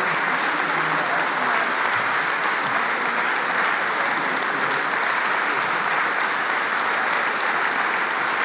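Audience applauding: an even, unbroken round of clapping that holds at a steady level.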